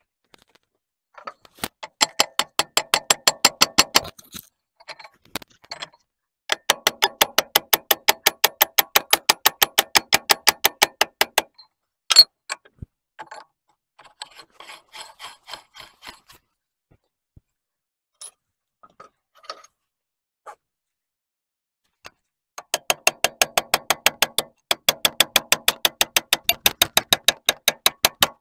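Rapid, even metal-on-metal tapping, about six strikes a second, in three runs of a few seconds each, with scattered single knocks between them. A hammer is tapping around the gland end of a bulldozer's hydraulic cylinder.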